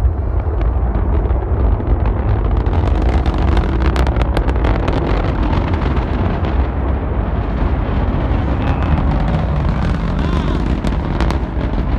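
Antares rocket's first-stage engines heard from the viewing area: a continuous low rumble with sharp crackling pops, thickest about three to five seconds in and again near the end.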